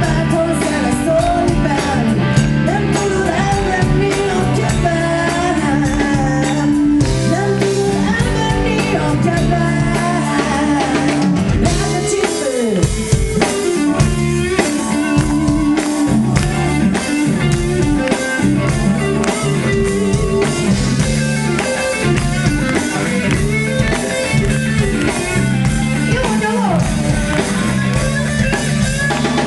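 Live rock band playing, with electric guitars, bass guitar and drum kit, and a woman singing over it.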